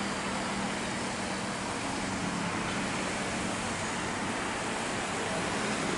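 Jet engines of a Boeing 737 airliner climbing out after takeoff: a steady rushing noise, with a faint low hum in the first half.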